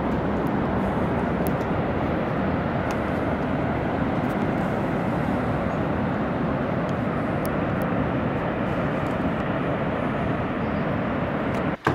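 Steady roar of ocean surf breaking on the shore, cutting off abruptly near the end.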